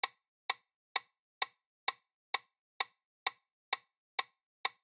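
Countdown timer sound effect: an even clock-like tick, about two ticks a second.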